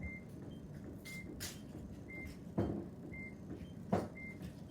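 SimpliSafe alarm base station giving short, high single beeps about once a second, the countdown of its delay before the alarm goes off. Two soft thumps come partway through.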